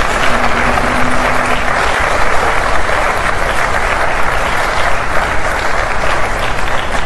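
Studio audience applauding steadily for a correct quiz answer, with a low held musical note under it in the first couple of seconds.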